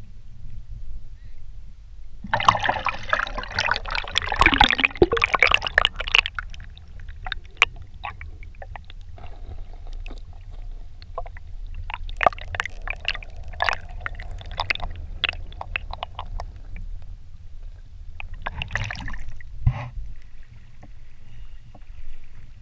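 Splashing as a pole-mounted GoPro is plunged into a river a couple of seconds in, then muffled underwater gurgling and scattered clicks while it is held under, and another splash near the end as it is lifted out, over a low rumble.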